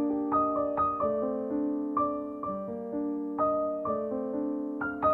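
Soft background piano music: a slow line of single struck notes about twice a second over sustained lower notes.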